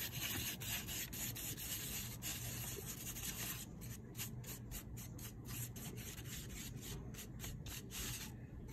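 A stick scraping and stirring thick paint mixed with crushed Orbeez gel beads on a plate. It is a steady scratchy rubbing at first, then from about three and a half seconds in it breaks into short separate strokes about twice a second.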